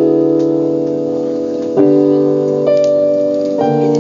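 Sustained piano chords played on a keyboard. The chord changes about two seconds in and again near the end.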